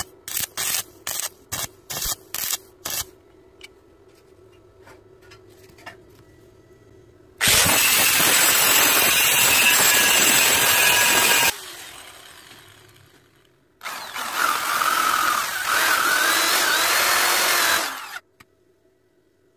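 Stick welding arc on steel plate, struck and broken in short pulses about three times a second for the first few seconds. Then an angle grinder grinds the weld down: it runs for about four seconds and winds down, then runs again for about four seconds before cutting off.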